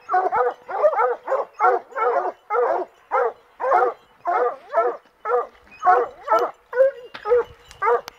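A pack of Plott hounds barking at the foot of a tree, a quick unbroken run of short barks from several dogs, about two or three a second. This is a tree bark: the hounds are baying up the trunk at quarry they have treed, here a bear.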